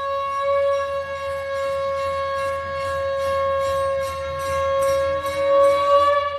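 Conch shell (shankh) blown in one long steady note, its pitch rising slightly near the end, with a faint low hum underneath.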